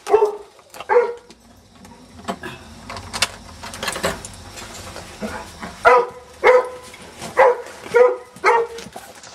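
Dog barking: a few scattered barks early on, then a steady run of barks about two a second in the second half.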